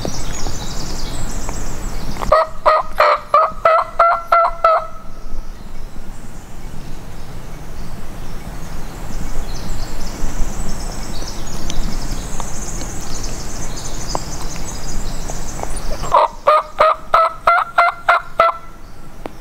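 Wild turkey gobbler gobbling twice, each gobble a rapid rattling run of notes about two and a half seconds long, the second about fourteen seconds after the first.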